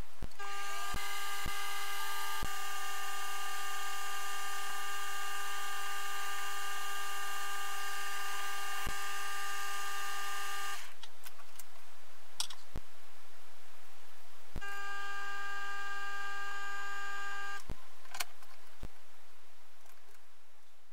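Optimum D180x300 mini metal lathe running with a steady high whine while a twist drill bores into a brass workpiece. It stops after about ten seconds, then runs again for about three seconds. Sharp clicks are scattered through the sound.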